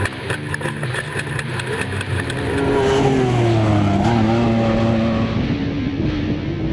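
Off-road race vehicle engine running hard, with a rapid crackle in the first half. Its pitch drops from about two and a half seconds in, then holds steady.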